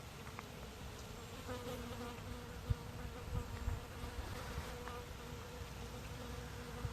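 A flying insect buzzing steadily close by, a humming drone that holds its pitch. A few brief low thumps come around the middle.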